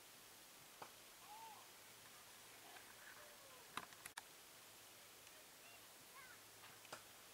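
Near silence with faint distant bird calls, a few short arching chirps, and a handful of soft clicks, the sharpest a little under four seconds in.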